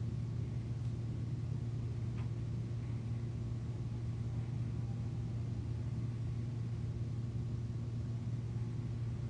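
Steady low hum with a faint hiss and no other events: the background noise of the recording, room tone.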